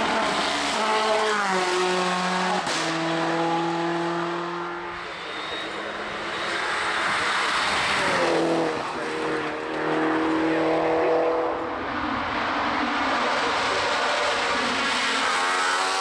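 Racing car engine running hard on a hill climb. The engine note holds high, then steps down twice in the first few seconds with a sharp crack at the second step. About eight seconds in it dips and climbs again.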